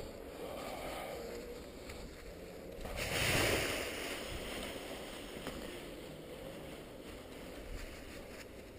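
Wind buffeting the microphone of a head-mounted camera, an even rumbling rush that swells into a louder gust about three seconds in.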